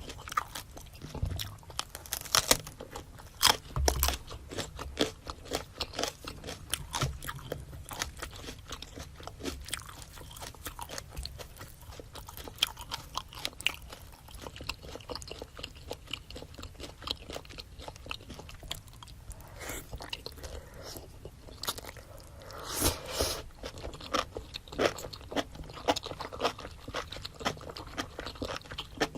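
Close-miked chewing and biting of a spicy seafood boil: a steady run of wet clicks and crunches, with a louder flurry of crunching about three quarters of the way through.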